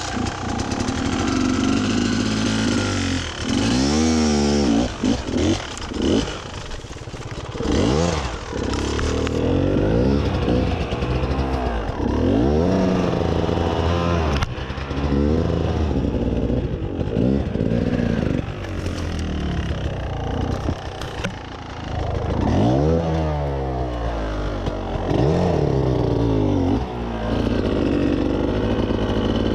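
Beta enduro dirt bike engine revving up and down over and over under load on a steep rocky climb, the throttle opened and closed every second or two, with occasional knocks from the bike on rock.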